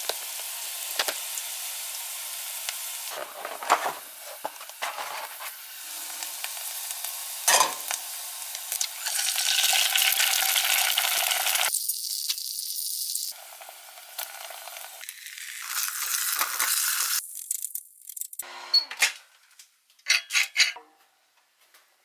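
Bacon and an egg frying in a pan, a steady sizzle that swells and drops several times, with a few knocks of a utensil against the pan. Near the end, a quick run of clinks of dishes before it goes quiet.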